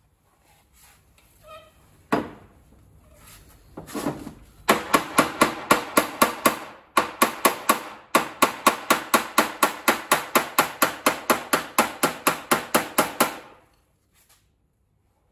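Small body hammer striking the steel rear fender lip of a Mazda RX-7 FC from inside the wheel arch, working the folded-in lip back out to its original shape. A few single knocks lead into a fast, even run of ringing metal taps, about four a second for some nine seconds, broken by two short pauses.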